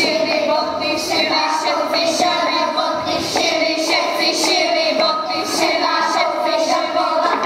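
Group of children singing a folk song together, several voices on one melody.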